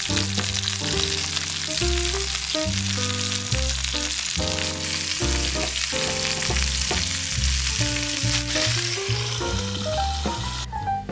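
Chicken thighs and sliced onion sizzling in hot oil in a frying pan, moved about with metal tongs. The sizzling cuts off suddenly near the end.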